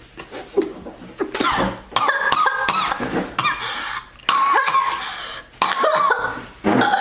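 A boy coughing and gagging loudly, in a run of sudden strained fits, some drawn out into voiced retching: a staged choking fit after eating the joke 'poisoned' pancake.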